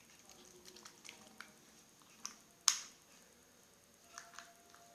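Light clicks and taps of small plastic slime supplies being handled, with one sharper click about two and a half seconds in.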